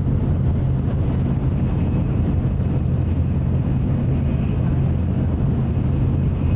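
Steady low rumble of a Nozomi Shinkansen bullet train running, heard inside the passenger cabin, with a faint high whine above it.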